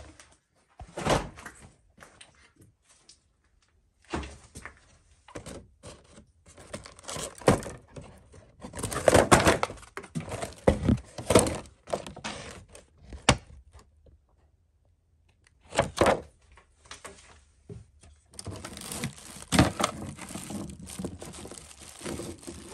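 Hands rummaging among stored objects, giving irregular knocks, thunks and rubbing as things are shifted and a model car is pulled from a metal bin. There are two busy spells of handling, one in the middle and one near the end, with a single sharp knock between them.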